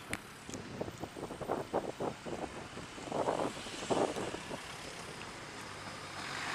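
Riding an electric bicycle through slow-moving city traffic: road and traffic noise with wind on the microphone. A quick run of short knocks and rattles comes about a second in, then two louder rushes of noise around three and four seconds in.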